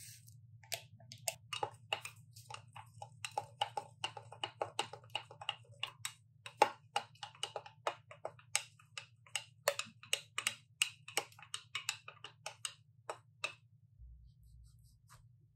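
A long stirrer clinking against the inside of a glass mug as instant coffee is stirred: quick, irregular light clicks, several a second, that stop about a second and a half before the end, over a steady low hum.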